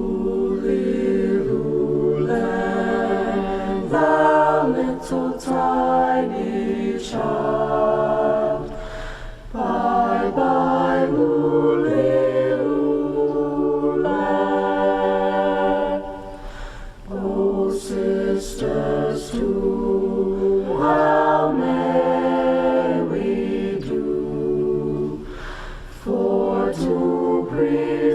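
High school choir singing a cappella, holding sustained chords in long phrases with brief breaks for breath between them.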